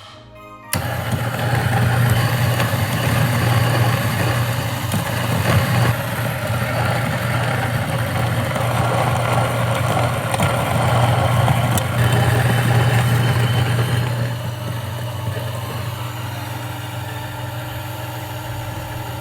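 Niche coffee grinder's motor running steadily as it grinds espresso beans, with a low hum and a gritty grinding noise over it, growing quieter over the last few seconds.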